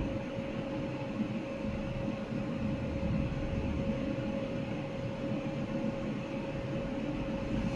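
Laser welding machine running: a steady low hum and rumble with one constant mid-pitched tone.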